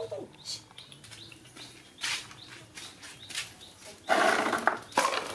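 A young macaque gives a short falling squeak at the start. About four seconds in comes a loud, harsh noise, with a brief second one about a second later.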